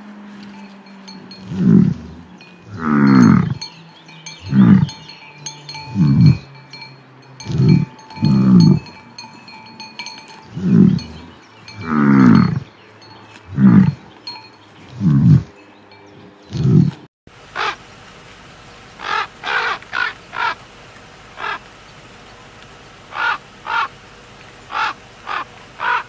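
Cattle lowing in a long series of short calls that fall in pitch, over a steady ringing chime. About seventeen seconds in the sound cuts to a crow cawing in short bursts of several caws.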